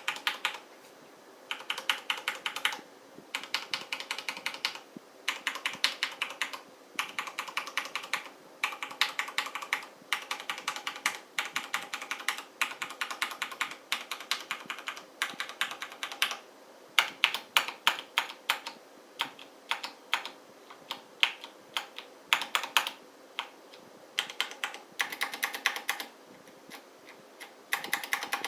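Mechanical keyboard with Cherry MX Brown switches being typed on steadily. The keystroke clicks come in runs of a few seconds, with short pauses between them.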